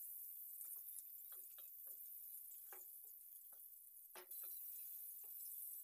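Faint sizzle of eggplant pieces shallow-frying in oil in a kadai, with scattered small pops and ticks of spitting oil. A sharper click comes about four seconds in.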